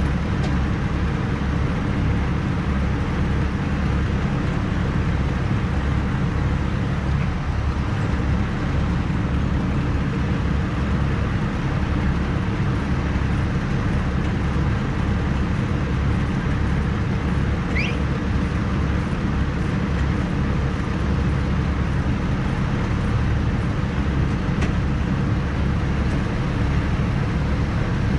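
Heavy engine running steadily at a constant speed, a low, even drone with no change in pitch or level.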